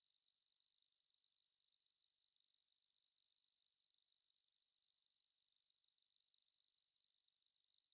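A steady, high-pitched electronic tone near 4 kHz, a single pure pitch with a faint higher overtone, unchanging in level or pitch. It imitates the ringing heard with tinnitus.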